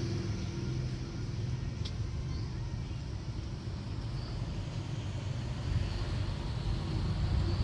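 Steady low rumble of outdoor background noise, with a faint click about two seconds in.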